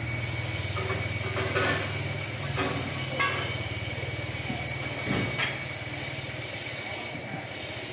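An engine running steadily at a low idle, with a few scattered metallic knocks and clanks.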